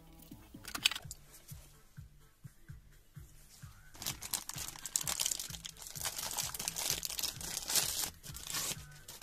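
Clear plastic parts bag crinkling and rustling as it is handled and opened, from about four seconds in until near the end, over background music with a steady beat. A sharp click comes in the first second.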